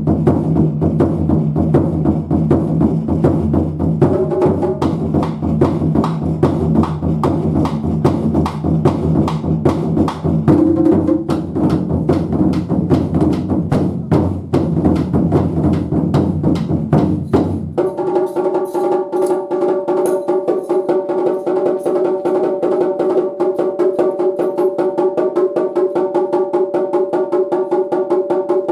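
Japanese taiko drums played in a fast, dense rhythm of strikes. About two-thirds of the way in the deep drums drop out and lighter, higher-pitched rapid strikes carry on over a steady tone.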